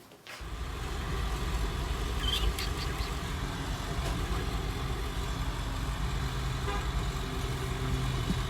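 A car driving: a steady low rumble of engine and road noise that starts abruptly about half a second in.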